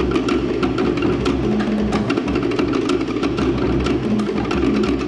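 Fast Polynesian drumming music: rapid, sharp wooden knocks over a steady low drum beat, playing for a dance.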